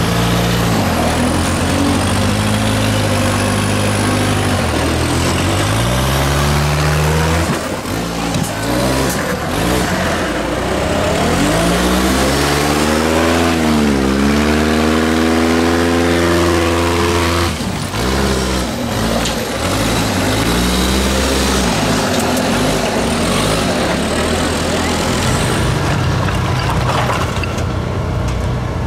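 Engine of a custom-built 4x4 trial buggy revving up and down as it crawls over rocks, its pitch rising and falling several times.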